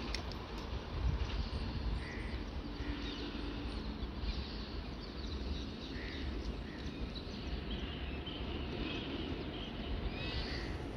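Outdoor ambience: birds chirping and calling now and then over a steady low rumble.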